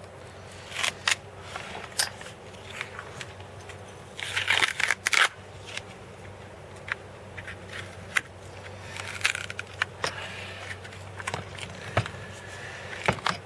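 Hand work on a cured epoxy patch on a plastic chainsaw hand guard: scattered clicks and crackles with a few short, scratchy rubs, two of them about halfway through and near the three-quarter mark.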